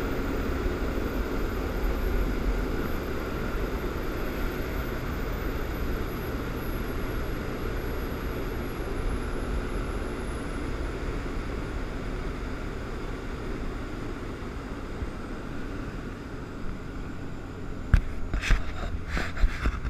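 Motorboat running at speed: steady engine noise mixed with the rush of hull wash and wind, slowly dropping in level. About two seconds before the end, a few sharp knocks close to the microphone.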